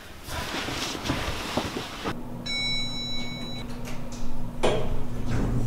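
Bedding rustling as a duvet is thrown off. Then a steady elevator hum sets in, with an electronic chime held for about a second, and the elevator doors slide near the end.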